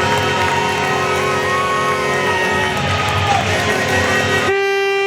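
Background rock music with guitar. Near the end it cuts off abruptly to a different track of steady held string notes.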